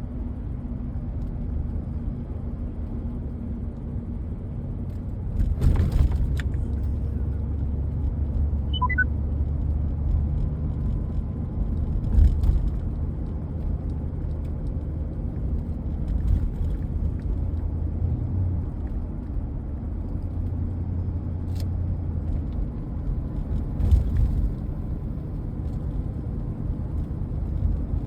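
Vehicle cabin while driving: a steady low rumble of engine and road, with a few thumps as the vehicle hits bumps. About nine seconds in, a brief chime of a few falling notes.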